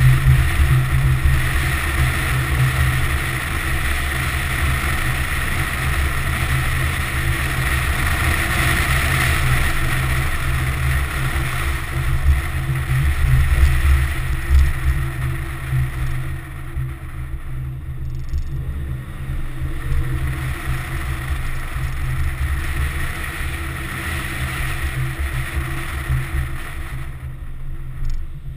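Wind buffeting and road noise on a GoPro Hero2 mounted outside a moving Infiniti G35: a heavy, fluttering low rumble with steady rushing noise above it, easing off in the second half and dropping further near the end.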